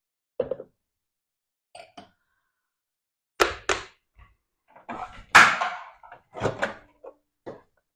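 Knocks and clunks of a bowl and kitchen things being handled, with a louder clatter about five and a half seconds in, as a bowl of white chocolate is put into a microwave oven.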